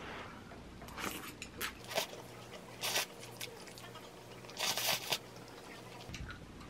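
A person eating spaghetti close to the microphone: a string of short, noisy chewing and mouth sounds, the loudest about two, three and five seconds in.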